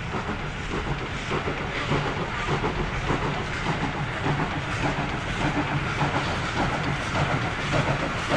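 Steam locomotive Speyerbach working hard with a train of passenger coaches, its exhaust chuffing in a continuous rhythm with hissing steam. It grows a little louder as it draws nearer.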